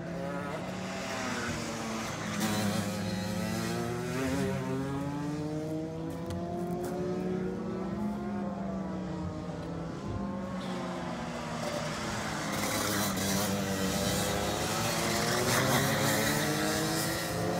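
Rotax Max 125cc two-stroke kart engines, more than one at once, rising and falling in pitch as the karts lap the circuit. The sound grows louder for the last few seconds as a kart comes by close.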